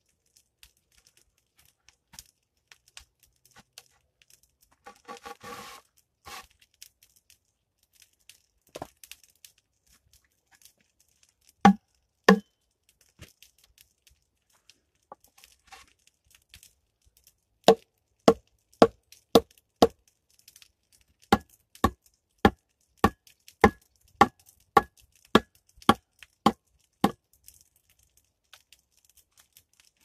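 Wood knocking on wood as a split log is worked into place in a wall of leaning poles: a brief rustle of bark, two loud knocks, then a steady run of sharp knocks about two a second.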